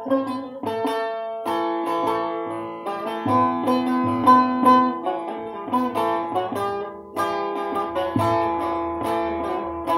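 Bağlama (saz), the Turkish long-necked lute, played solo: a steady run of quickly picked melody notes over strings left ringing.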